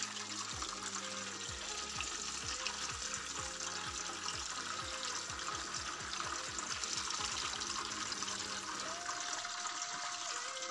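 Hot oil sizzling steadily in a frying pan as breaded bread triangles deep-fry, with soft background music.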